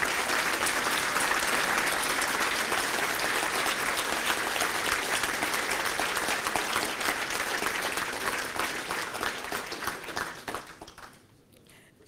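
Audience applauding, a dense steady clapping that dies away about ten seconds in.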